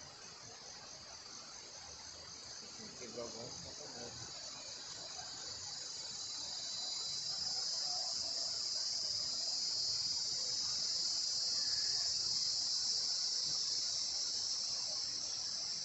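Insect calling in a high buzz: rapid pulses at first, swelling into a steady, louder drone in the second half, then falling away at the end.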